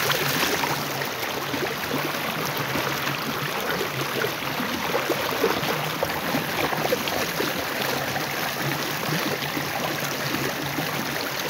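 Stream current running steadily, an even rush of flowing water.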